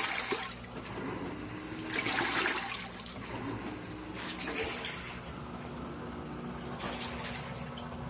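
Top-load washing machine in its wash cycle: water churning and sloshing in the tub, swelling in surges about every two seconds, with a steady motor hum underneath from about halfway.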